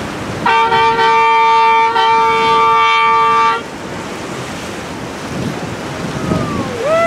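Boat horn sounding one long blast of about three seconds, with a brief dip near two seconds, over wind and water noise. Near the end a second, higher horn starts with a falling swoop and then holds steady.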